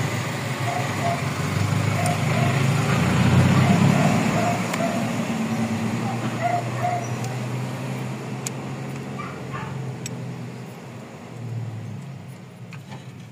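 A motor vehicle's engine running close by, with a steady low hum that swells about three seconds in and then fades away toward the end, with a few light clicks.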